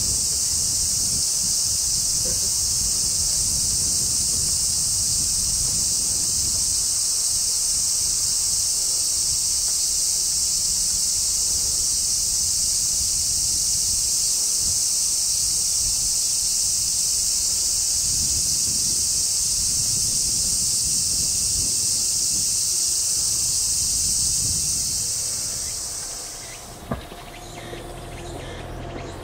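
Cicadas droning in a loud, steady high-pitched chorus that cuts off abruptly near the end.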